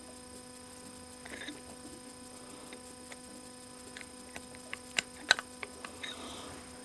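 Steady electrical hum. Small carburetor parts are pushed into place with a few light clicks and taps, bunched together about two thirds of the way in.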